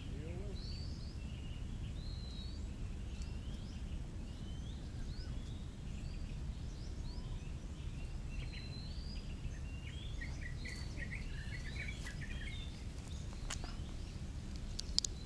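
Many small birds chirping and calling in short rising and falling notes, with a quick run of notes about ten to twelve seconds in, over a steady low background rumble. A sharp click sounds near the end.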